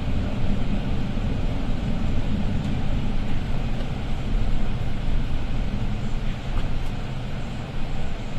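Inside a Setra S415 LE business bus while it drives: a steady low diesel engine hum with tyre and road noise, and a few faint clicks from the cabin.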